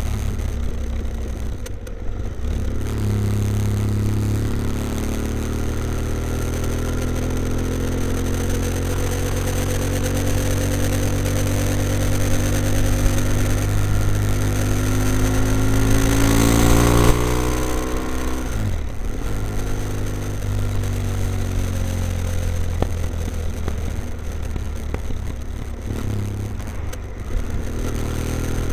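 BMW F800ST parallel-twin engine running through a Blue Flame twin-port exhaust with both baffles in. Its pitch climbs slowly for about fifteen seconds, falls away sharply, then runs on lower and steady.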